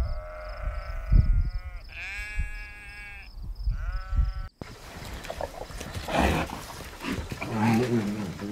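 Sheep bleating: three long, wavering bleats in quick succession. About halfway through the sound cuts off abruptly, and after some rustling a black bear gives a low growl near the end.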